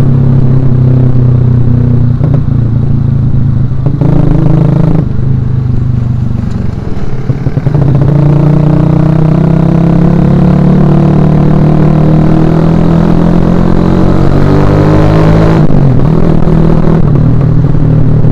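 Suzuki Shogun Axelo R's single-cylinder four-stroke engine running under riding, easing off briefly, then revving steadily higher for about seven seconds before the revs drop suddenly near the end, as the throttle is closed for a shift, and it pulls steadily again.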